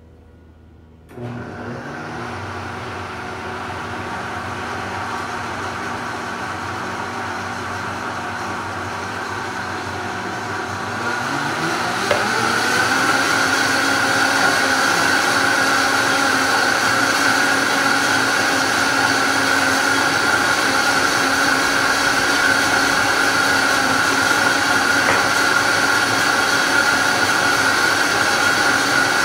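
High-speed countertop blender mixing a thick chocolate donut batter. The motor starts about a second in and runs steadily, then rises in pitch around eleven or twelve seconds in as it goes up to high speed, and holds there, louder. Blending on high whips air bubbles into the batter.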